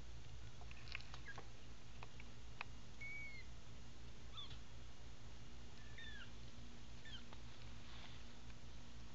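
Newborn American Bobtail kittens, eyes just opening, giving four or five short, high, squeaky mews, over a steady low hum. A few faint clicks come in the first few seconds.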